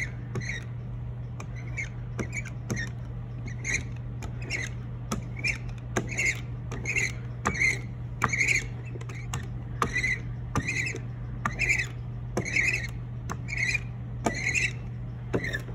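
Rubber brayer rolling tacky water-soluble printmaking ink onto a carved linoleum block, each pass a short sticky rasp, about one or two passes a second. A steady low hum runs underneath.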